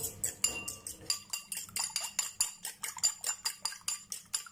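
A metal fork clinking rapidly against a ceramic bowl while beating two raw eggs, about five quick clicks a second.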